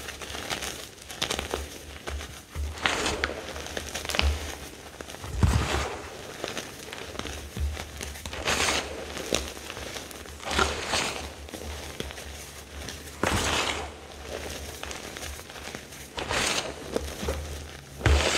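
Reformed gym chalk crushed by hand in a bowl: handfuls of pressed chalk powder squeezed and crumbled, with repeated crunches coming at uneven intervals of one to three seconds.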